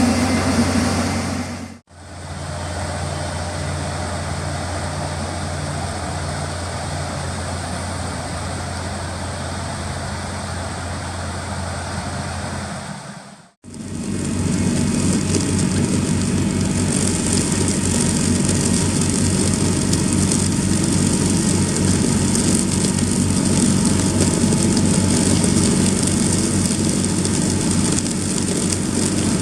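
Heavy farm machinery running steadily: engine drone with working-machine noise, in three shots cut together with brief gaps of silence about 2 s and 13.5 s in. The last shot is louder, with a fast rhythmic low pulsing.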